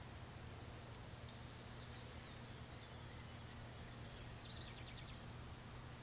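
Faint outdoor ambience: a steady low hum with a few faint high chirps, and a quick run of ticks, like a short trill, about four and a half seconds in.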